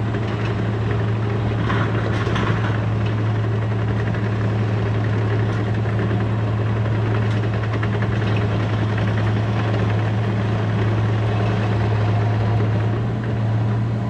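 Cat D5 bulldozer's diesel engine running steadily, a low, even drone.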